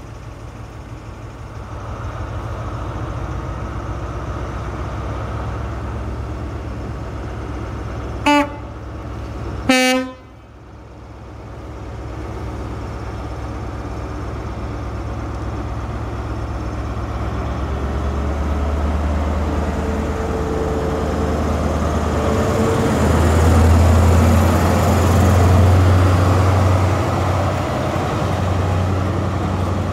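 Class 43 HST power car's MTU diesel engine running at a standstill, then two short blasts on the two-tone horn, a higher note then a lower one. The engine then powers up and grows louder as the train departs and draws past.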